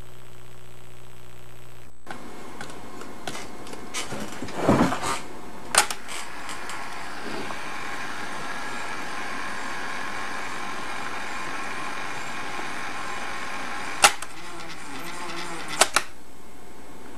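Clicks from the control keys of a 1961 Webcor Microcorder reel-to-reel tape recorder. Between them comes a steady hiss with faint hum as the recorder runs, with a short falling sound about five seconds in. Sharp key clicks come a few times near the start and again near the end, where the hiss stops.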